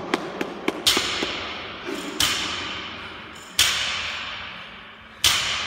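Barbell loaded with bumper plates hitting the gym floor as the reps go on: four heavy thuds about one and a half seconds apart, each ringing out in the room, the last two loudest.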